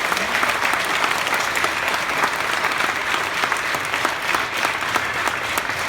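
A group of people applauding, a dense, steady patter of many hands clapping.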